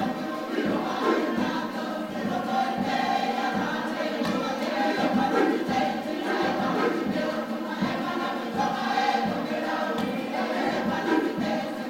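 A Cook Islands group choir singing together in harmony, many voices holding and shifting notes.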